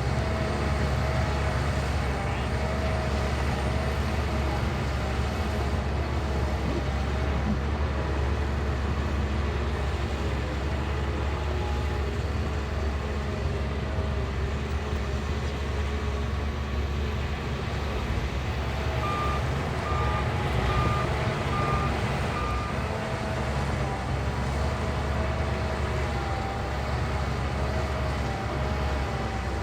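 Shantui bulldozer's diesel engine running steadily with a wavering whine. About two-thirds of the way through, a reverse alarm beeps five times.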